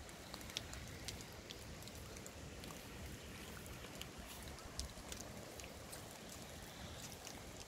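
Light rain falling: a soft steady hiss with scattered single drops ticking on nearby surfaces.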